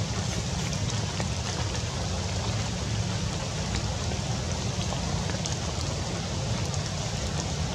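Steady rain falling through tree leaves, a continuous hiss with faint scattered drop ticks, over a steady low rumble.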